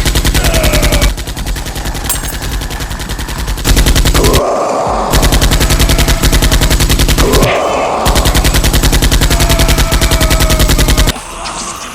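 Rapid automatic gunfire, a dubbed machine-gun sound effect, firing in long loud bursts that break off briefly twice and stop near the end.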